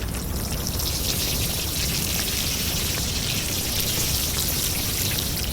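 Steady hissing noise, like rain, with a low rumble underneath; it cuts in suddenly just before and holds even throughout.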